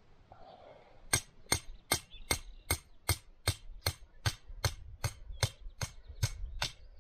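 Hammer striking steel stakes: about fifteen sharp metallic strikes in a steady rhythm of roughly two and a half a second, starting about a second in. The stakes are being driven in for a three-spike picket anchor.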